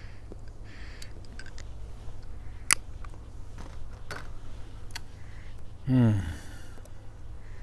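Puffing on a meerschaum pipe while relighting it with a lighter: soft drawing puffs and small clicks, with one sharp click about three seconds in. Near the end there is a short, louder voice-like sound that drops quickly in pitch.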